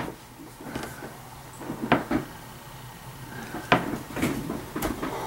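A few scattered light knocks and clicks, about half a dozen, spaced irregularly over faint room noise.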